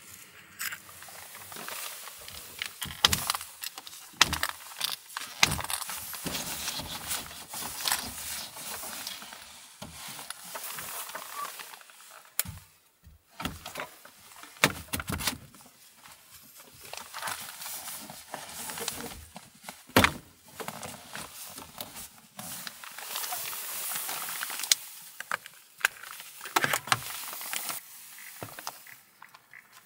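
Irregular clicks, knocks and rustling over a steady hiss: gear and clothing being handled inside a small van.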